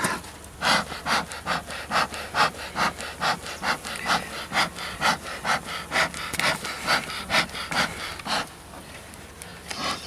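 Metal hive tool scraping propolis off the wooden hive in quick back-and-forth strokes, about three a second, stopping about eight and a half seconds in.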